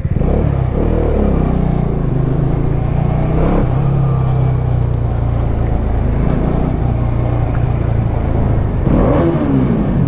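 Bajaj Dominar 400 single-cylinder motorcycle engine and exhaust heard from on the bike while riding: it runs steadily through most of the stretch, then the revs climb again about nine seconds in.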